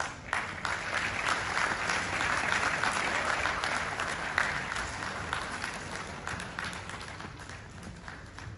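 Audience applauding. The clapping swells in the first second, is strongest for the next few seconds, then slowly dies down toward the end.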